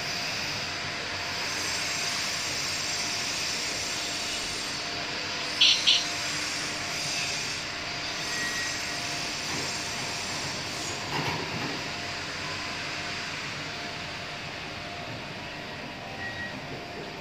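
PRIMO Medis-100 stainless-steel delivery robot driving on a tiled floor: a steady rolling rumble from its drive motors and wheels with a faint hum, growing slightly fainter. Two brief high squeaks about six seconds in.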